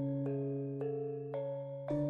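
Background music: soft bell-like notes about twice a second over a sustained low chord, which changes near the end.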